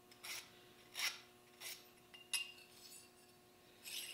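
Small steel parts of a handmade tap wrench being fitted together by hand: about five short, faint metal-on-metal scrapes and clicks as the plunger and a tap are worked into the wrench body.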